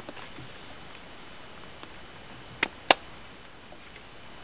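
Two sharp clicks about a quarter of a second apart, over faint steady background noise.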